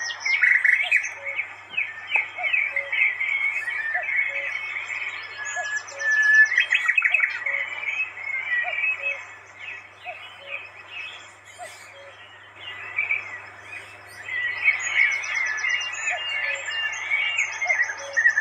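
Many wild birds chirping and calling together, with short, rapid, high trills breaking in now and then.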